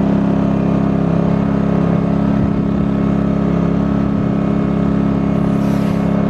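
Pulsar 2300 (G2319N) inverter generator's small gasoline engine running steadily at high speed with no load, its eco mode left off. The sound is loud and even.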